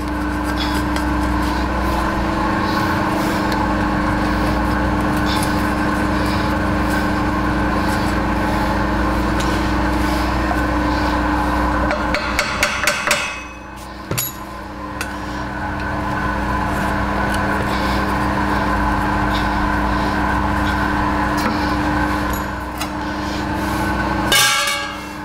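Steady hum of a running rotary phase converter, with light metal taps and scrapes from a tool on a motor's pressed-steel fan cover. A little past halfway comes a quick run of hammer taps, and a short metallic clatter follows near the end.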